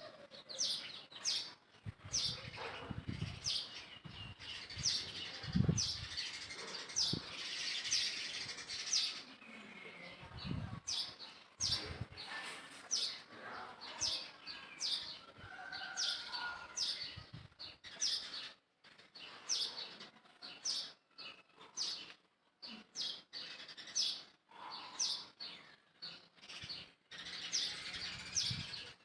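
Small birds chirping in many short, quick, high notes, with a few brief low thumps in between.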